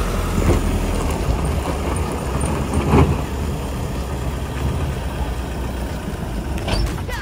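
A van's engine running with a steady low rumble, with a short knock about half a second in and a louder one about three seconds in.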